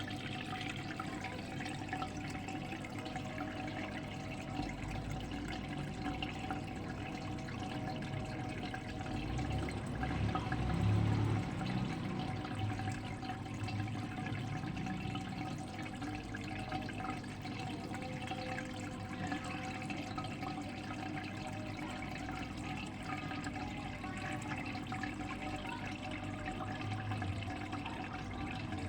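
Steady running and trickling water with a faint constant hum, and a brief low rumble about ten seconds in.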